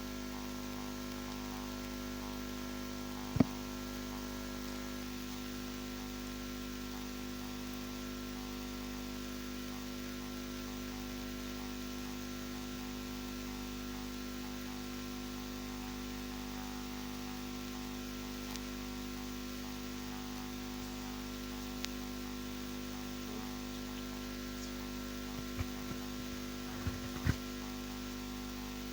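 Steady electrical mains hum with a buzz of several fixed tones. A sharp knock comes about three seconds in, and a few softer knocks near the end.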